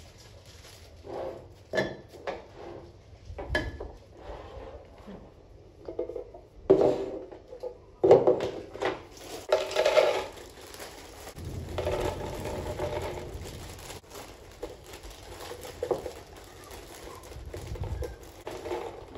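Household items being handled and set down: irregular knocks and clinks with some rustling, a busier stretch in the middle.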